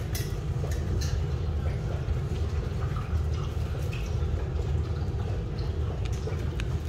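Rottweiler puppies eating dry kibble from metal pans on a tile floor: scattered crunches and sharp clicks over a steady low hum.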